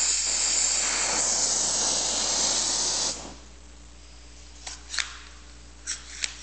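Oxy-acetylene welding torch with a number 3 tip burning with a steady hiss, which cuts off suddenly about three seconds in as the torch is shut off. A few light clicks follow.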